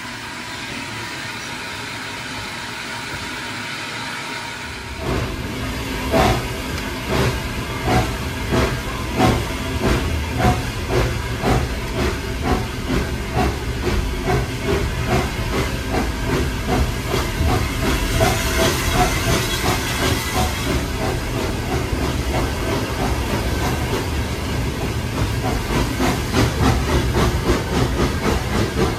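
Austerity 0-6-0 steam locomotive pulling away. A steady hiss of steam gives way, about five seconds in, to sharp exhaust beats that start at about one a second and steadily quicken over a deeper rumble of the moving train, with a brief brighter hiss of steam midway.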